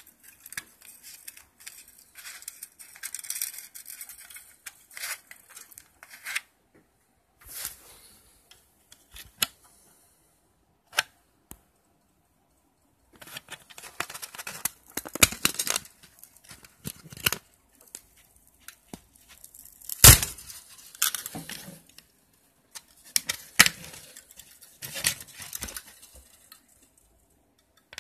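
Paper cone of a blown car loudspeaker being torn and picked apart by hand: irregular rustling, crackling tears in runs, with sharp clicks and short pauses between, the loudest snap about twenty seconds in.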